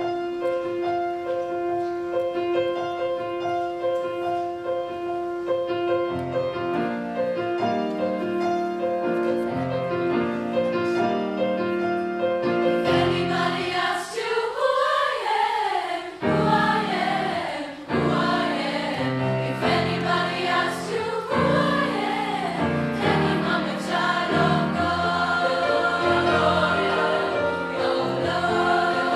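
Girls' choir singing in parts with grand piano accompaniment. The voices begin on long held notes, then grow louder and fuller about halfway through, with rising and falling melodic lines.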